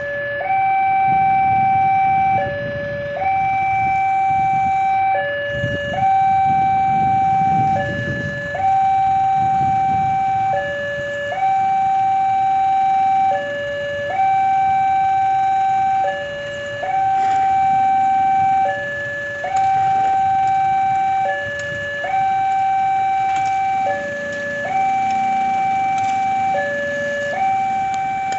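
Railway level-crossing warning alarm sounding a repeating two-tone signal: a higher tone held about a second and a half, then a short lower tone, cycling roughly every two seconds, warning that a train is approaching.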